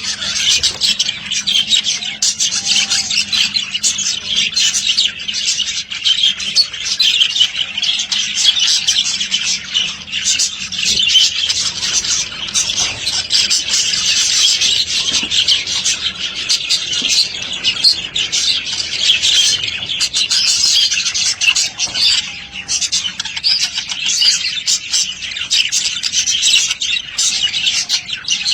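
A flock of budgerigars chattering and warbling: a dense, unbroken stream of high chirps, trills and squawks.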